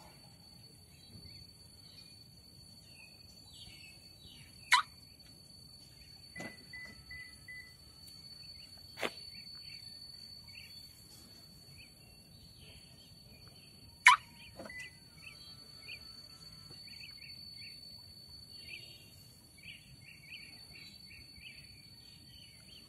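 Birds chirping intermittently over a faint steady high-pitched whine, broken by a few sharp clicks, the two loudest about 5 and 14 seconds in. About 6.5 seconds in comes a quick run of four short, even notes.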